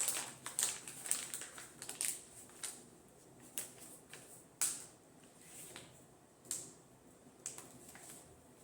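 Plastic wrapping on a rolled rug crinkling and crackling as it is pulled and torn off by hand, in a dense flurry at first and then in scattered crackles.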